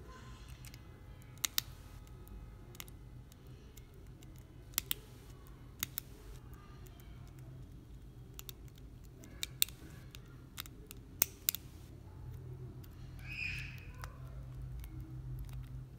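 Sharp, irregular metallic clicks and ticks of needle-nose pliers working the metal frame tabs of a PS4 DualShock 4 controller's analog stick module, about a dozen in all, over a steady low hum.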